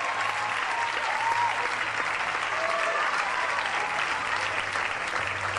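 Audience applauding steadily in a theatre after a ballet solo, with a few voices calling out over the clapping.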